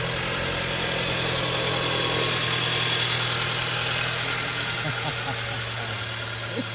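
Mercedes 350e's 2.0-litre four-cylinder petrol engine idling steadily just after starting, its first run after being replaced. The level eases slightly over the last few seconds.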